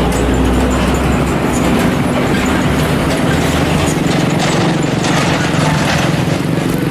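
Bus engine running, a steady low drone with rattle.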